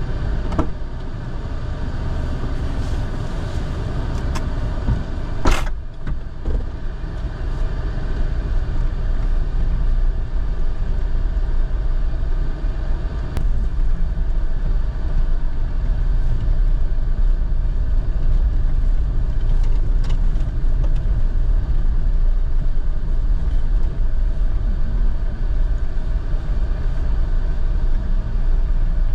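A car running, with a steady low engine and road rumble, and a sharp click about five and a half seconds in.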